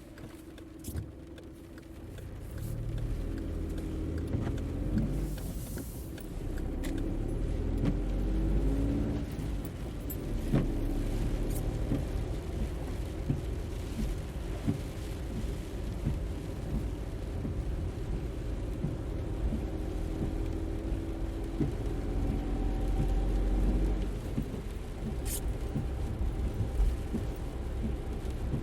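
Car engine running with a deep rumble, its note climbing several times as it speeds up, with scattered clicks and knocks.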